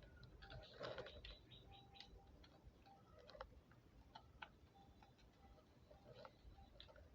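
Faint, scattered small clicks and ticks from hands and tools working on the circuit board while a jumper wire is fitted, against near silence.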